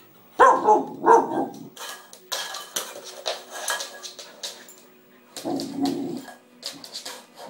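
Alaskan Malamute puppy barking twice about half a second in and again near the end, while a small plastic measuring cup clatters and knocks against a wooden floor as the puppy plays with it.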